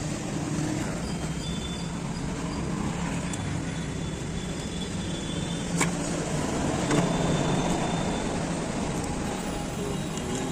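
Steady road traffic noise, with a single sharp click about six seconds in.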